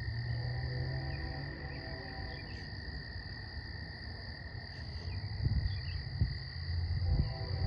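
Steady chorus of calling insects and frogs, two high droning tones, over a low rumble that swells near the end, with a few faint knocks.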